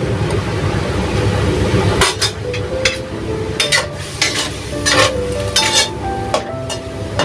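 Squid stir-frying in a pan: a spatula scraping and knocking against the pan over a sizzle, with sharp strikes several times from about two seconds in.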